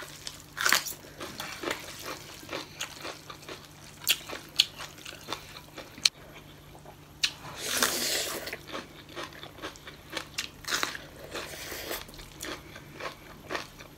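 Close-miked eating sounds: chewing and crunchy bites of raw red bell pepper, with scattered light clicks of a fork on a plate and a longer wet slurp of noodles about eight seconds in.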